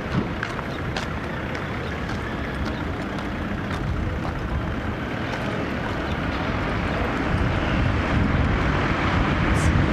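City street traffic: a steady hum of cars and vans, growing louder over the last few seconds as a vehicle approaches. A brief high squeak near the end.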